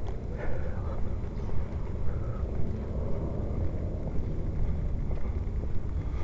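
Low rumble of wind and movement noise on a body-worn microphone while walking, with small irregular knocks.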